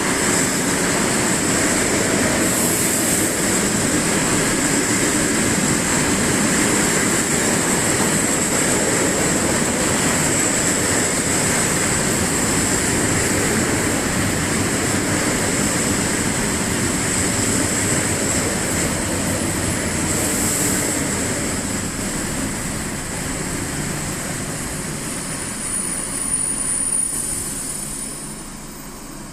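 ED4M electric multiple unit running into a station: a loud, steady rush of wheels and running gear that eases off in the later seconds and drops away near the end as the train slows. A thin high whine joins in near the end.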